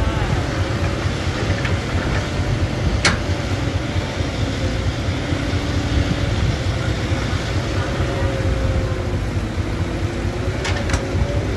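Diesel engine of a Caterpillar hydraulic excavator running steadily as it works through a loading cycle, heard as a dense low rumble. A sharp knock comes about three seconds in and two more near the end.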